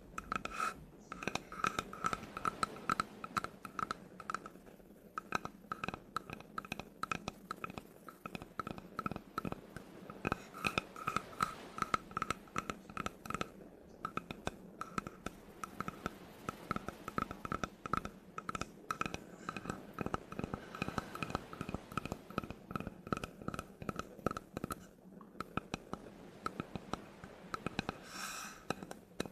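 Close-miked tapping and scratching on wood: quick runs of sharp taps with a hollow ring, broken by short pauses.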